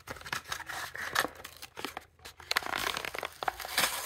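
Packaging bag and its paper wrapping being torn open by hand: a run of irregular crinkling, rustling and tearing crackles.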